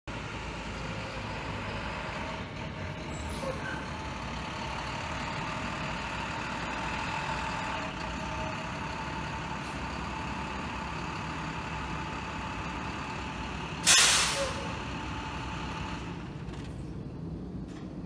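Delivery truck's engine running as the truck pulls up and stops. About three-quarters of the way through comes one loud, sudden hiss of its air brakes that fades within a second. The engine noise drops away soon after.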